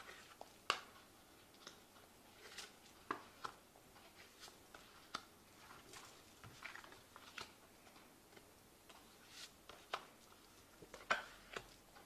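Faint, scattered small clicks and taps at irregular intervals over quiet room tone, the sharpest about a second in and again near the end.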